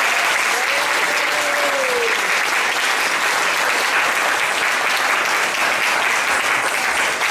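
Audience applauding steadily at the end of a dance performance.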